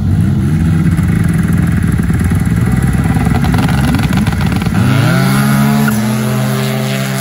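Two racing snowmobiles revving at the start line, then launching about five seconds in: the engine pitch climbs sharply and holds high as the sleds pull away up the hill, fading slightly near the end.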